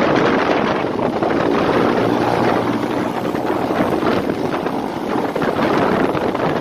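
Wind buffeting the microphone on a moving motorcycle: a loud, steady rushing noise with the bike's running noise under it.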